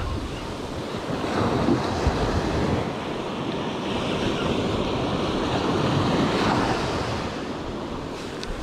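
Small surf breaking and washing up a sand beach, rising and falling in gentle swells, with wind buffeting the microphone.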